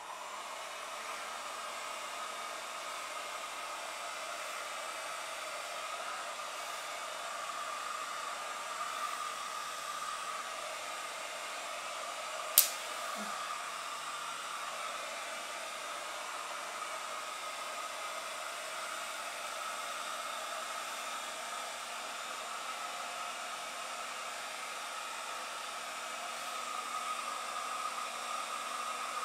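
Remington Curl & Straight Confidence hot-air styler's blower running steadily through its curling wand attachment, switching on right at the start. A single sharp click about twelve seconds in.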